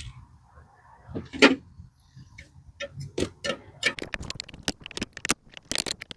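Hand tools clicking and tapping on the brake line fittings of a master cylinder as the lines are loosened. A series of sharp, irregular metallic clicks, with one louder knock about a second and a half in, and the clicks coming faster in the second half.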